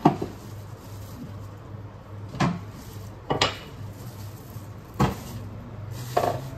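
A kitchen bin's lid knocking and clattering as it is lifted, handled and set down while dough is taken out: five sharp knocks spread over a few seconds, the loudest right at the start, over a steady low hum.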